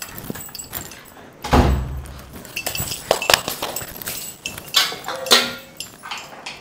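A heavy thump about a second and a half in, then a run of clattering knocks and clinks of steel cookware (pans and a pressure cooker) being handled, with a few short metallic rings.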